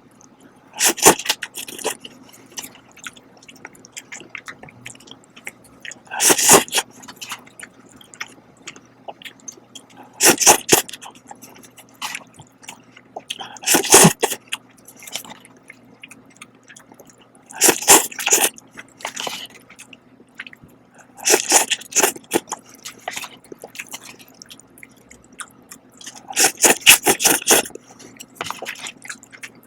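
A person eating Shin Ramen instant cup noodles close to the microphone: loud slurping bursts about every four seconds, with quieter chewing and mouth clicks in between.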